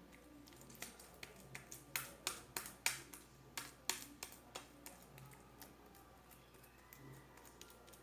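Homemade slime being squeezed and played with in the hands, giving a run of sharp little clicks and pops, about a dozen, clustered between one and five seconds in, then only faint room noise.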